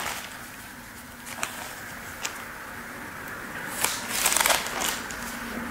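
Thin Bible pages leafed through by hand: a few light page flicks, then a longer rustle of pages turning about four seconds in.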